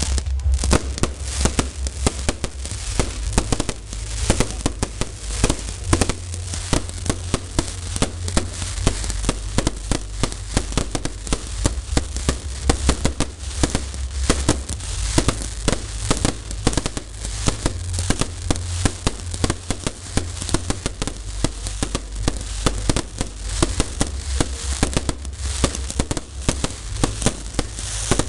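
Fireworks display: aerial shells bursting and crackling in a dense, continuous barrage of sharp bangs, many a second, over a steady low rumble.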